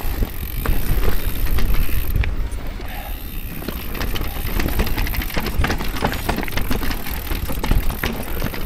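Orbea Rise electric mountain bike rolling over loose rocky singletrack: tyres crunching over stones and gravel, with the bike rattling in many small clicks and knocks over a steady low rumble.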